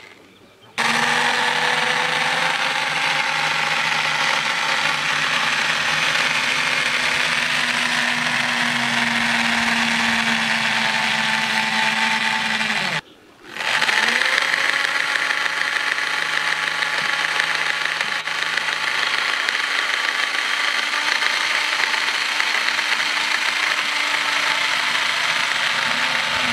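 Corded electric drill running steadily under load, spinning strands of twine to twist them into rope. It starts about a second in, winds down and stops briefly about halfway through, then spins up again.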